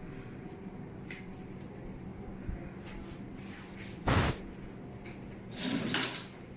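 Handling sounds during a neck treatment on a treatment bed: one short sharp knock about four seconds in, then a brief rustle near the end, over a faint steady low hum.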